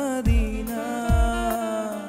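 Male vocalist singing a slow, held melody line of a Malayalam Christian devotional song, with band accompaniment and a deep drum beat about once a second.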